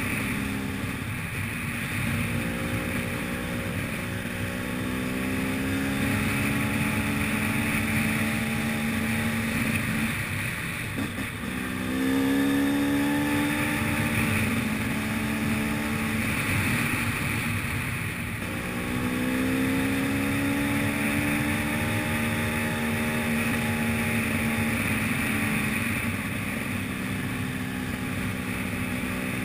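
Enduro motorcycle engine heard from the rider's seat, running steadily under way. Its note drops twice as the throttle comes off, about a third and two-thirds of the way through, then climbs again as the throttle opens.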